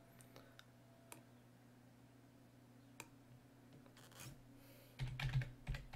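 Faint, isolated computer mouse clicks, then a quick run of keyboard typing starting about five seconds in, over a faint steady low hum.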